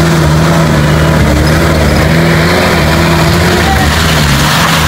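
Car engine sound effect: an engine running loud and steady, its low pitch wavering slightly.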